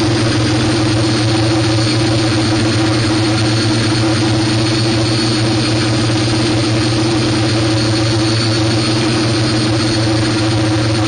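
Multirotor drone's electric motors and propellers humming steadily, heard from the aircraft carrying the microphone, a constant hum with several fixed pitches over a rush of noise.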